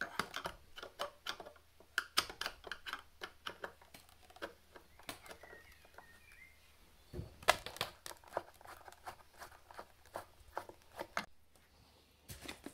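A screwdriver turning screws out of a polystyrene foam shipping box: a run of quick, irregular clicks and foam creaks, with one louder knock about seven and a half seconds in.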